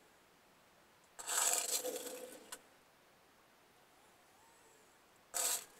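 Muffled scraping noise in two bursts: one lasting about a second and a half, starting about a second in, and a short one near the end, over a faint steady background.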